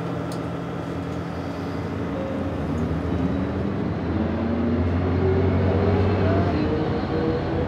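City bus engine heard from inside the cabin, getting louder and rising in pitch as the bus accelerates, then easing off near the end.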